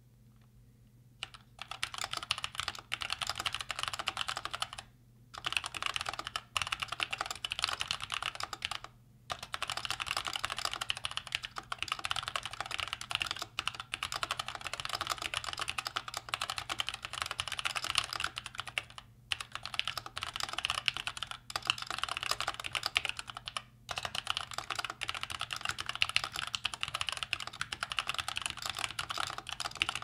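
Fast touch-typing on an X-Bows ergonomic mechanical keyboard with tactile Gateron Brown switches in its stock case and keycaps: a rapid, continuous clatter of keystrokes. It starts about a second in and breaks off in a few short pauses.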